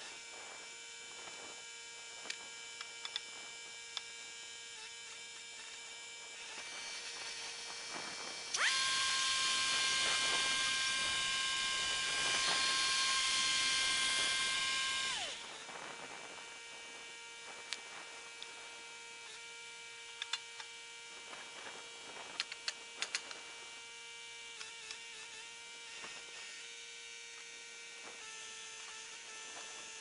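Wood-Mizer LT70 portable band sawmill's engine idling with a steady hum. About nine seconds in it throttles up sharply to a higher, louder pitch, holds for about six seconds, then winds back down to idle. Scattered light knocks sound throughout.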